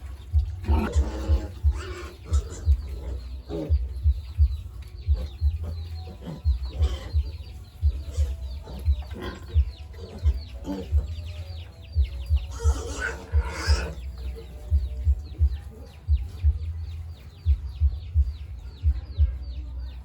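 Chickens clucking, with louder calls a few times and a longer burst about two-thirds of the way through, over frequent low thuds.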